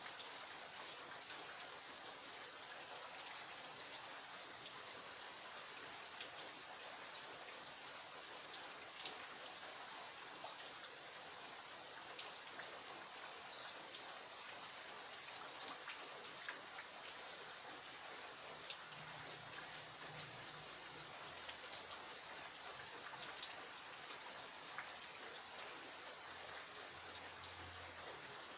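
Steady rain falling, with many individual drops ticking on a hard surface.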